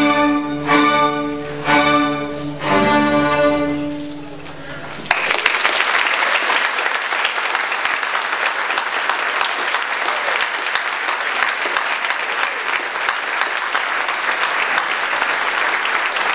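A string orchestra of violins, cellos and double basses plays a few final chords about a second apart, the last one held and dying away. About five seconds in, an audience breaks into applause that keeps going steadily.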